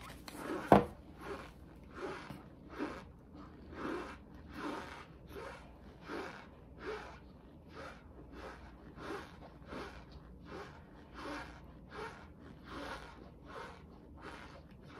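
Crunchy chewing of a mouthful of cornstarch, one regular crunch after another at about three every two seconds. A single sharp click comes less than a second in.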